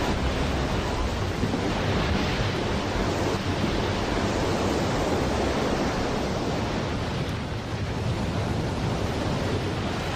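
Tsunami surge flooding over a coast: a steady rush of seawater and wind with a deep rumble underneath.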